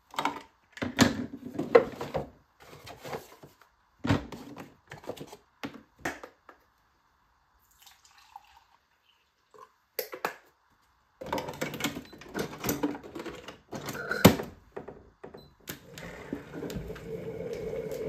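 Knocks and clicks of a capsule coffee machine being loaded and a glass mug set under its spout, then the machine's pump starting near the end with a steady hum as it begins to brew.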